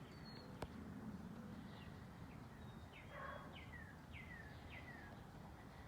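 Faint songbird calls outdoors: a run of short, high notes, each sliding downward in pitch, four in quick succession in the second half. A single sharp click sounds about half a second in.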